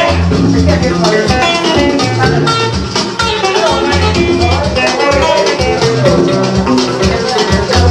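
Loud dance music with a moving bass line and melody, playing without a break.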